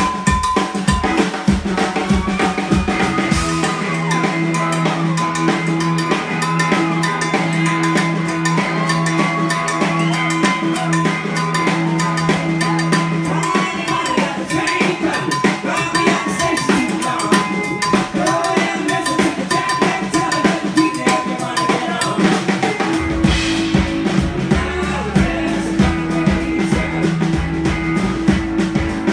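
Live band playing an instrumental passage: a drum kit keeps a steady groove with rimshots, under long held notes and gliding melody lines. Deep bass notes join in near the end.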